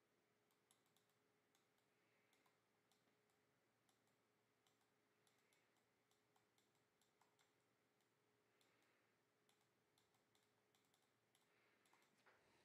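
Near silence: quiet room tone with faint scattered clicks, a few a second, and a faint steady hum.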